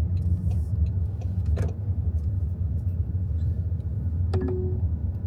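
Car cabin noise while driving: a steady low rumble of engine and road, with a faint click and, about four seconds in, a brief tone.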